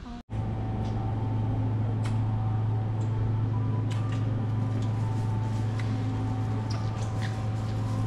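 A steady low mechanical hum, like an engine or machinery running evenly, begins just after a short cut, with a few faint clicks over it.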